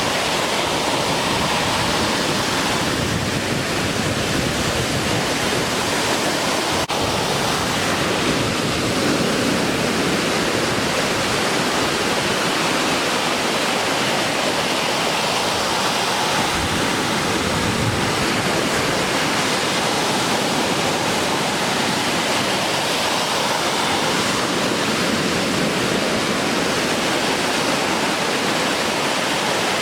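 Steady rush of breaking surf, the swell running high after a typhoon.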